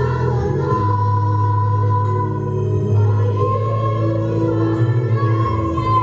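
Children's chorus singing a slow song with instrumental accompaniment, holding long notes.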